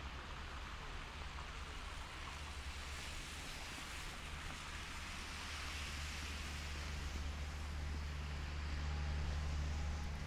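Steady outdoor noise with a low rumble that grows louder near the end.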